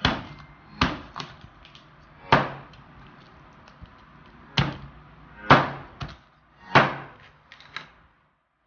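A heavy cleaver chopping through raw chicken and striking a plastic cutting board: about nine sharp chops at an uneven pace, some hard and some lighter, stopping near the end.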